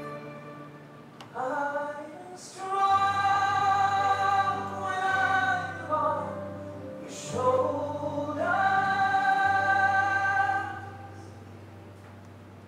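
Slow music with singing: long held sung notes in two long phrases over a steady low note, fading down near the end.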